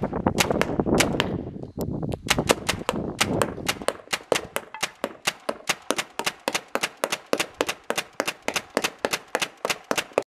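Paintball gun firing a rapid string of sharp shots. The shots come unevenly over a low rumble at first, then settle into an even rate of about four a second, and stop suddenly near the end.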